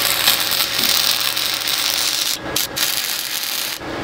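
Electric arc welding: the welding arc crackling and sizzling steadily, broken twice for an instant about two and a half seconds in, then cut off shortly before the end as the trigger is released.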